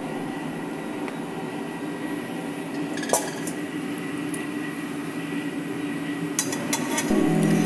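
Metal pot clinking and wet squelching as raw sheep head and leg pieces are handled in a stainless steel pot. There is a sharp clink about three seconds in and a few more near the end.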